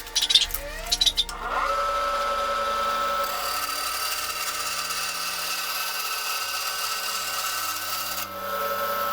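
Small electric power tool spinning up with a rising whine about a second and a half in, then running steadily with the rubbing of work held against it, after a few short knocks of handling. Background music plays underneath.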